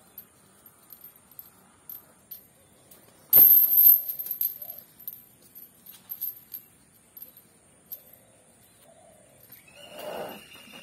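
Asian elephant blowing a short, loud puff of breath out through its trunk close to the microphone, about three seconds in, with a second, softer sound near the end. Faint scattered clinks and rustles around it.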